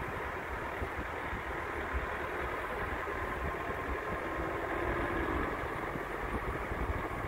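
Vehicle engine running steadily at low speed, heard from inside the cab, with a constant low rumble.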